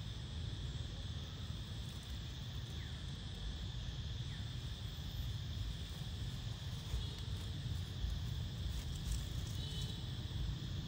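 Steady high insect drone over a low, wind-like rumble, with a couple of faint short chirps a few seconds in.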